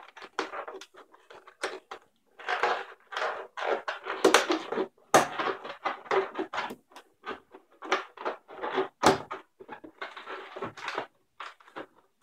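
A small yellow 5-inch latex balloon squeaking and rubbing under the fingers as it is squeezed, twisted and knotted, in many short irregular bursts.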